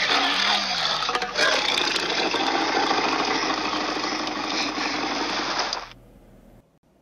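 Tyrannosaurus rex roar sound effect: one long, loud roar lasting about six seconds that cuts off abruptly.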